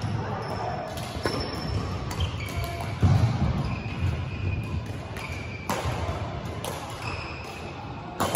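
Badminton play on an indoor court: sharp racket-on-shuttlecock hits every second or two, the loudest about three seconds in, with sneakers squeaking on the court floor between them.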